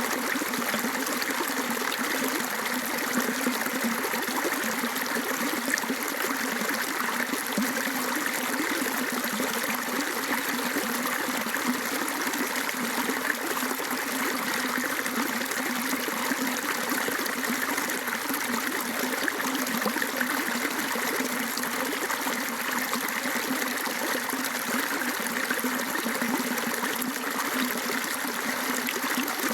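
Rainwater runoff flowing and trickling steadily, a continuous even rush of water.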